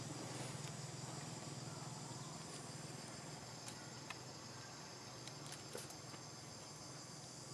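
Steady, high-pitched drone of an insect chorus in the surrounding trees, over a low steady hum, with a few faint clicks.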